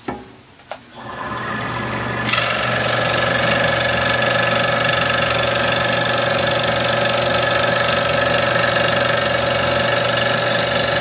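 Excalibur scroll saw starting about a second in, coming up to speed, then running steadily with its Pegas-clamped blade stroking up and down through wood.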